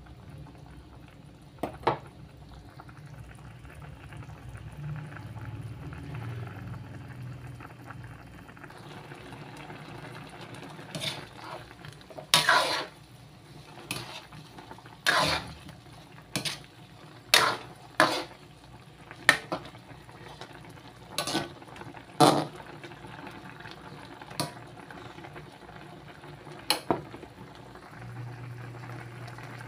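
Chicken adobo sauce bubbling steadily in a metal wok, with a metal spatula knocking and scraping against the pan as the pieces are stirred: a series of sharp clinks, once early and then many in the second half.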